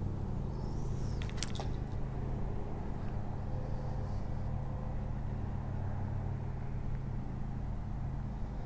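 A motor running with a steady low hum, and a couple of light clicks about a second and a half in.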